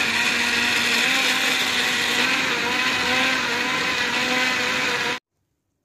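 Electric blender running steadily, pureeing aloe vera gel, cucumber peels and mint into a paste. It cuts off suddenly about five seconds in.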